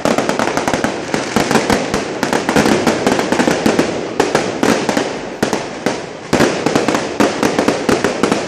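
Street firecrackers going off in a rapid, continuous run of sharp bangs and crackles, many a second and irregular.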